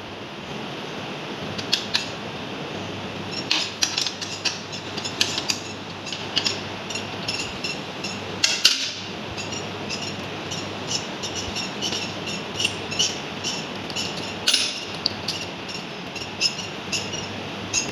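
Irregular sharp metallic clicks and taps of a screwdriver and small parts being worked on the auxiliary switch wiring inside a vacuum circuit breaker's mechanism cabinet, over steady background noise.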